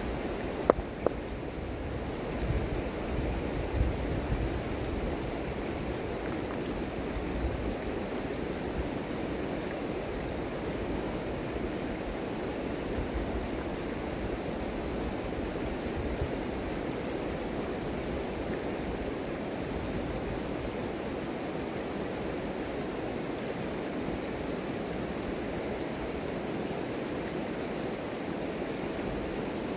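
Shallow river running over gravel: a steady rushing of water. A couple of sharp clicks come about a second in, and there is some low wind rumble on the microphone during the first several seconds.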